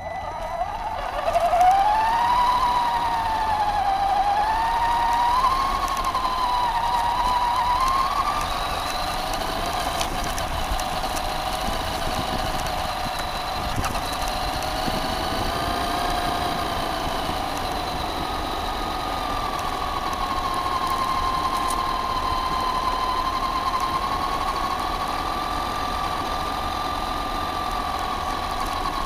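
Traxxas Stampede 4x4 RC truck's electric motor and gear drivetrain whining as it drives, heard from the onboard camera; the pitch wavers up and down with the throttle for the first half, then holds nearly steady at a cruise, over a haze of tyre noise on gravel.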